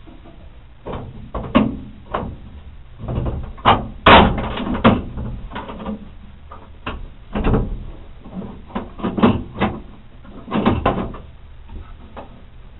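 Irregular clicks, knocks and rattles from a hand working inside the steel tailgate of a 1981 Ford Bronco, feeling for the latch and window-safety linkage. The loudest clunk comes about four seconds in.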